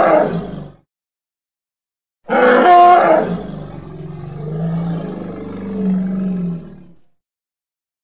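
Elephant trumpeting sound effect. One call dies away in the first second; after a gap of about a second and a half a second call starts with a loud high blast and then turns into a long, lower call that fades out about a second before the end.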